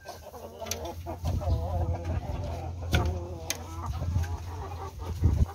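Chickens clucking on and off, with a few sharp clicks.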